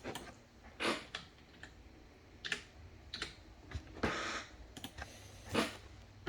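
Trading cards being handled on a table: irregular clicks and taps, with short rustling swishes of cards sliding about every second.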